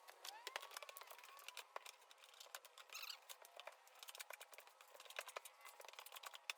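Near silence with faint, scattered clicks and ticks.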